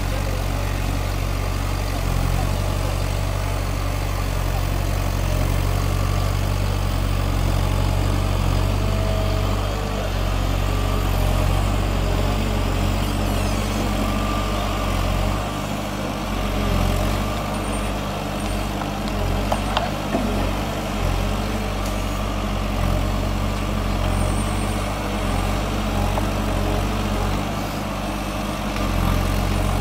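Diesel engine of a wheeled walking excavator running steadily while the machine works its digging arm. A few short sharp clicks come about two-thirds of the way through.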